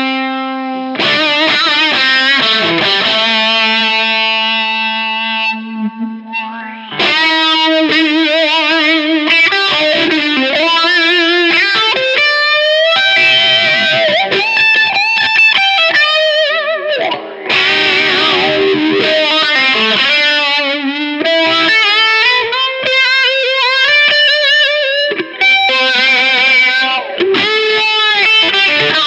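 Electric guitar played through an All Pedal Macrodose envelope filter pedal with its drive engaged. Each note has a wah-like filter sweep. A sustained note rings in the first few seconds, then quicker lead lines and bends follow.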